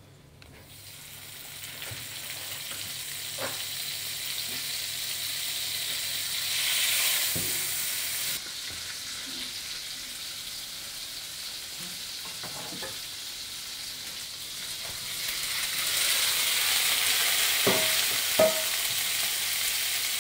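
Butter sizzling in a hot frying pan as chives and then boiled château potatoes are tossed in it. The sizzle builds up after a quiet start and is loudest in the last few seconds, with a couple of sharp knocks near the end.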